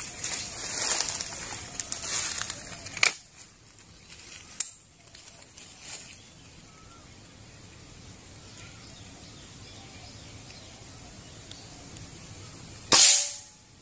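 Precihole NX200 Athena spring-piston air rifle being readied, with handling rustle and a few sharp clicks in the first few seconds, then a single loud shot near the end, followed by a short ring.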